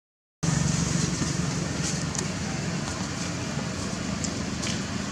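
Steady low rumbling background noise with a few faint clicks, after a brief dropout to silence at the very start.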